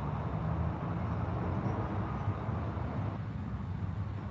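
Road traffic: a passing vehicle's low engine rumble over steady outdoor background noise, with a faint thin high whine from about a second in until near the end.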